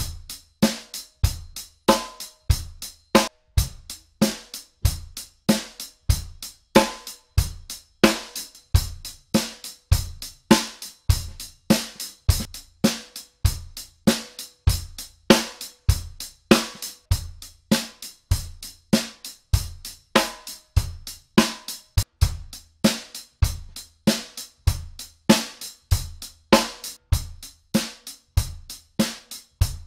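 Drum kit playing a steady repeating beat on bass drum, snare and hi-hat, to hear the buzz of the snare wires. The snare is fitted in turn with 20-strand snare wires: Canopus Vintage Plated, then a Dunnet Geo. H. Way set from about halfway in, then Fat Cat Classic near the end.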